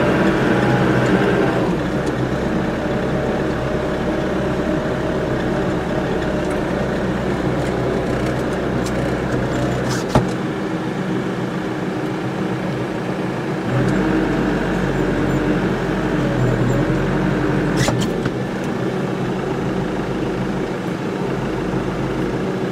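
New Holland loader tractor's diesel engine running steadily while driving, getting a little louder about fourteen seconds in. There is a sharp knock about ten seconds in and a fainter one near eighteen seconds.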